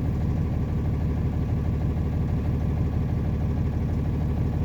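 Flatbed truck's engine running steadily at low revs, with no change in pitch or level.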